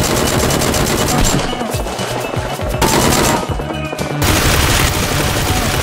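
Automatic gunfire sound effects in several rapid bursts with short breaks, over background music.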